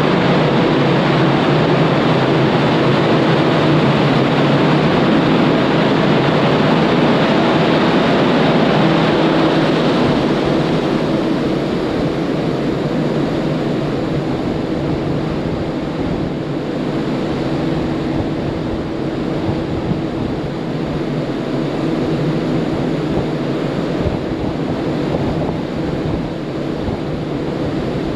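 Passenger ferry under way at sea: a steady rush of wind and water with a low engine hum beneath it, easing a little after about ten seconds.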